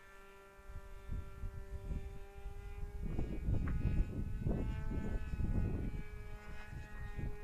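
Distant radio-controlled model airplane engine making a steady buzzing drone, its pitch shifting slightly as the plane flies. Wind rumbles on the microphone over it, loudest through the middle.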